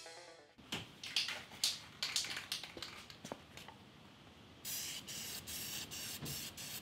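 A run of sharp clicks and rustles, then, about two-thirds of the way in, an aerosol can of black spray paint hissing in quick short bursts.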